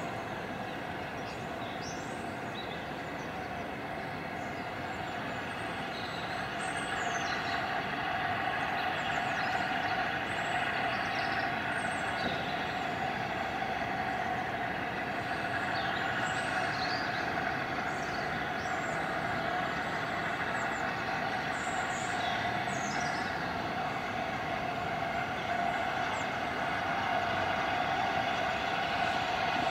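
LNER A4 Pacific 60009 'Union of South Africa', a three-cylinder steam locomotive, working a train away from a station in the distance: a steady sound that grows gradually louder as it approaches.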